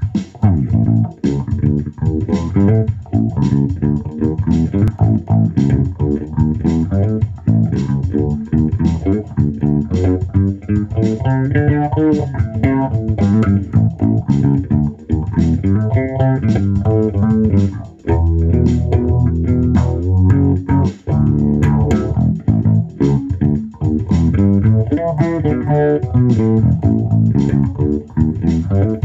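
Electric bass guitar playing a busy line of plucked notes over a steady beat of sharp attacks.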